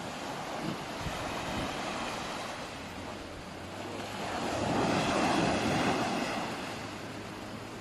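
Sea waves washing in, one wave swelling loudest about halfway through and then falling back, with some wind on the microphone.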